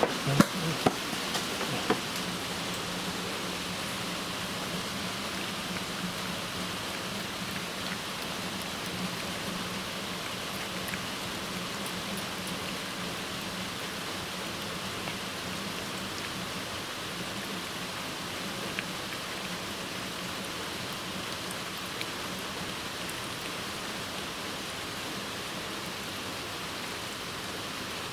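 Heavy rain falling steadily, with a few sharp taps in the first two seconds.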